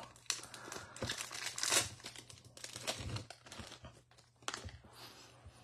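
Foil wrapper of a baseball card pack crinkling in the hands as the cards are slid out of the torn-open pack, followed by the stack of cards being shuffled, in several irregular rustles.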